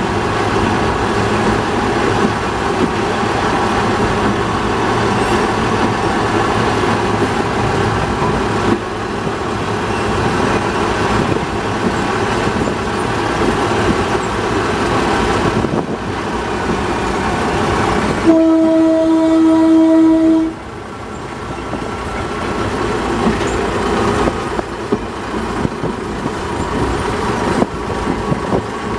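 Small diesel shunting locomotive running along the track, its engine and wheel noise steady throughout. A little past the middle, its horn sounds one loud, steady blast of about two seconds.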